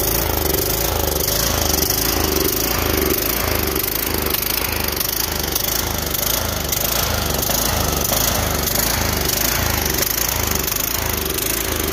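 Kohler Courage 20 hp single-cylinder engine on a Troy-Bilt Super Bronco riding mower running steadily, with a regular low beat.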